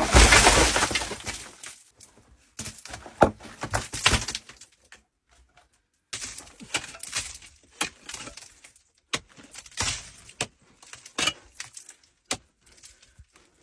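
Irregular sharp clinks and knocks of hard pieces striking, with a loud rushing clatter in the first second or so and a short silent gap about five seconds in.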